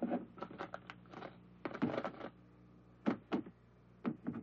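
Rummaging: irregular knocks, clicks and rustles in short clusters as a cardboard box, a dresser and a wooden wardrobe are searched by hand.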